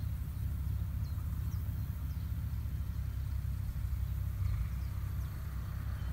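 Tractor's diesel engine running with a steady low rumble.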